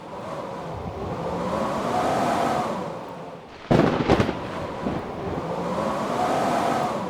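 Blizzard wind howling in two slow swells, with a whistling pitch that rises and falls. A few sharp, loud thumps come just past the middle.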